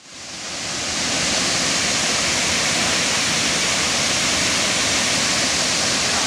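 Waterfall's steady rush of falling water, fading in over the first second.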